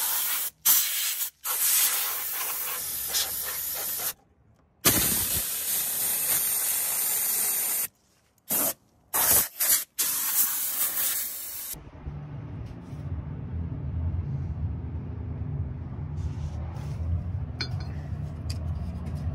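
Pressurised spray hissing in bursts of a few seconds with short breaks, cleaning grime off the underside of a riding lawn mower. The spray stops about two-thirds of the way through, leaving a steady low rumble.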